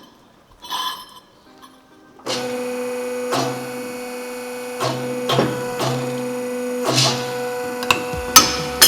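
Light metal clinks, then a machine's electric motor starts about two seconds in and runs with a steady hum, with irregular sharp metallic knocks over it as the welded test piece is put through the bend test.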